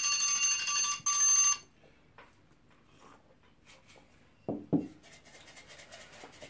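Smartphone countdown-timer alarm sounding a steady electronic beep at time-up, with a short break about a second in, and stopping about a second and a half in. Two brief soft knocks follow about four and a half seconds in.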